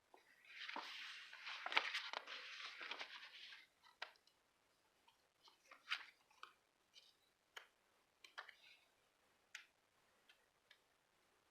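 Crinkly rustling of paper being handled for about three seconds, then scattered light taps and clicks.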